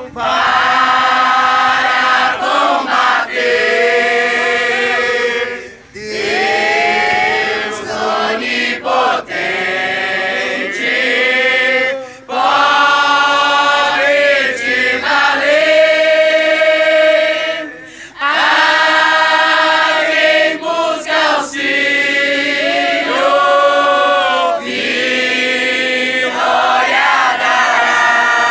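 A large group of young men and women singing together as a choir, with no instruments heard. The song comes in long phrases with short breaks about every six seconds.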